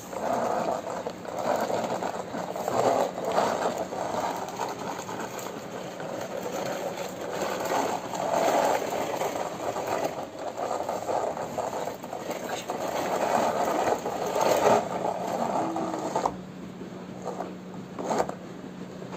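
Plastic toy police jeep's metal gear mechanism whirring and ratcheting in uneven strokes as the toy is worked along the floor under a hand. The whirring stops suddenly about sixteen seconds in, leaving only a couple of faint clicks.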